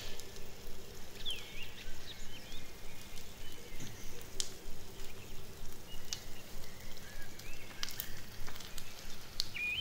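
Small wood-stick fire crackling under a miniature brass pot, with scattered sharp clicks as a small spoon stirs the rice. Birds chirp now and then in the background.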